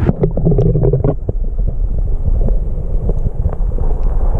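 Wind buffeting the microphone: a loud, low rumble with scattered clicks and knocks from the camera being handled.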